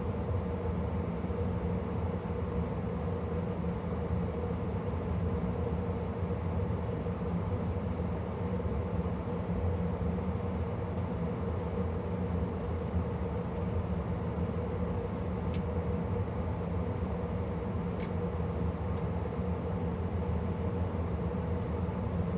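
2013 Carrier Sentry gas furnace running: a steady rush of air with a constant low hum. A single faint click comes about three-quarters of the way through.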